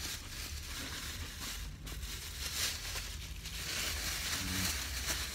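Thin white plastic takeout bag rustling and crinkling as it is handled and lifted up, the crinkling growing denser in the second half.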